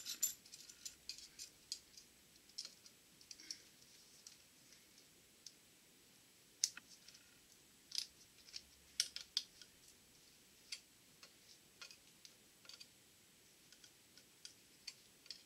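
Light, irregular metallic clicks of snap-ring pliers and a steel snap ring against a Borg-Warner T-10 four-speed mainshaft as the retaining clip is worked into its groove above the bearing, a few sharper clicks in the middle. The clip is a tight one, the thickest that fits the groove, and a bear to get in.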